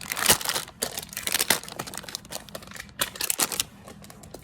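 Plastic crinkling and rustling in irregular bursts as something is handled.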